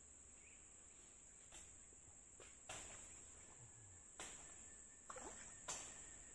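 Crickets chirring in a steady high drone, with about half a dozen faint sharp clicks or knocks spread through it, the loudest near the end.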